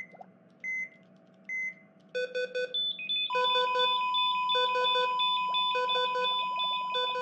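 Electronic beeping: a few single high pings, then from about two seconds in a repeating pattern of quick four-beep bursts, roughly once a second, over two steady held tones.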